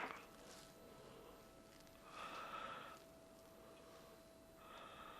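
Near silence with a person's soft breathing: two slow breaths out, about two seconds in and again near the end, over a faint steady tone.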